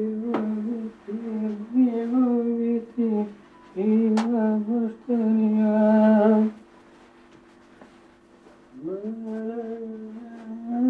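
A person humming a slow tune with closed lips, in long held notes. Each phrase starts with an upward slide, and there are pauses between phrases, the longest from about six and a half seconds to nearly nine. A couple of short clicks come through, the sharpest about four seconds in.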